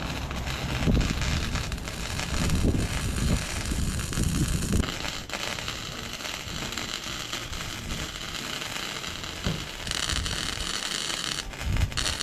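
Welding arc crackling and hissing steadily while a bead is laid across a wide gap in a metal frame, the sound shifting in character about five and ten seconds in.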